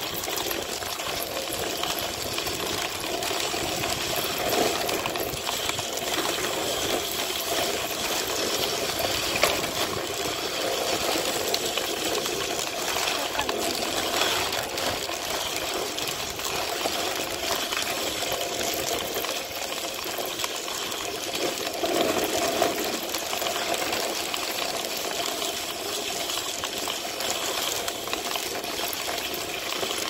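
A dogsled running over a snowy trail behind a husky team: a steady rushing hiss of the runners on snow, with light clinking of the harness and gangline chain fittings.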